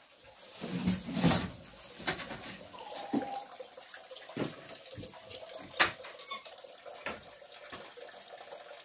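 Water running and splashing from an ever-flowing well, like a tap pouring into a basin, with irregular sharper splashes over the steady flow.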